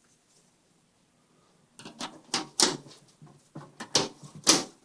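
Plastic fan-mounting piece of a Cougar MX300 PC case clicking and knocking as it is pushed in and pulled out. About two seconds in comes a run of sharp clicks, several of them loud.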